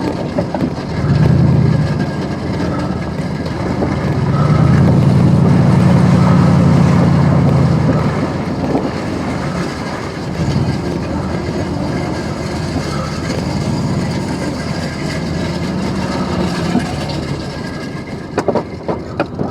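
A heavy vehicle's engine running with a rough, rattling low rumble that surges loudest from about four to eight seconds in, then eases and swells again more faintly.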